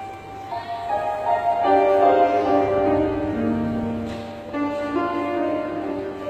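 Keyboard playing slow, sustained chords as the instrumental introduction to a choral anthem, before the choir comes in.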